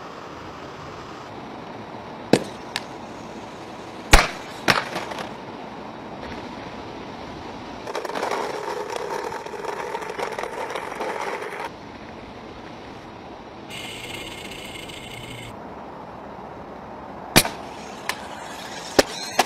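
Small four-wheeled robot with white wheels: several sharp bangs and clattering knocks as it jumps and lands, and a few seconds of rattling as its wheels roll over concrete.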